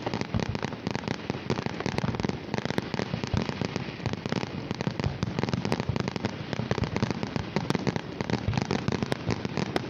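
Fireworks finale: a dense, continuous barrage of rapid bangs and crackling shells with no pause between bursts.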